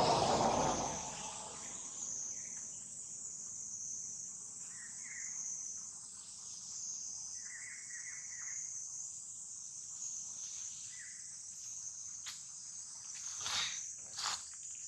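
Steady high-pitched drone of an insect chorus, with a few short chirps now and then and two sharp clicks near the end. A louder rushing noise dies away in the first second.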